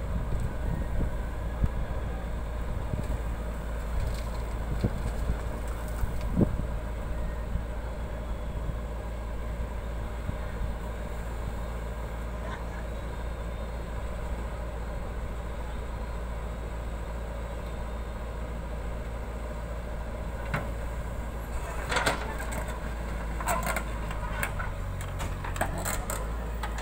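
JCB 3DX backhoe loader's diesel engine running steadily under load while it digs and loads earth, a continuous low drone. In the last few seconds there is a burst of sharp clattering knocks from soil and stones as the bucket works at the trolley.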